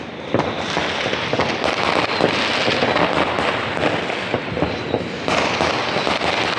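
Many fireworks and firecrackers going off at once, a continuous dense crackle of bangs and pops with no pause.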